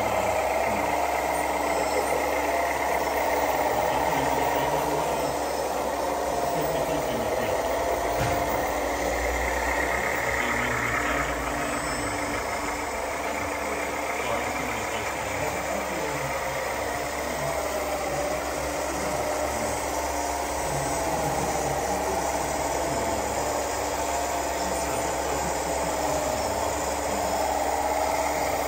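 Radio-controlled model trucks running: a steady engine-like drone with a motor whine that wavers slowly up and down in pitch.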